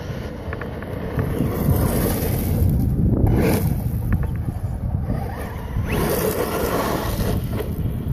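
Wind buffeting the microphone, with a Traxxas Rustler 4x4 electric RC truck driving over loose gravel: its tyres and motor rise into a rushing hiss twice as it passes close, about three seconds in and again around six seconds.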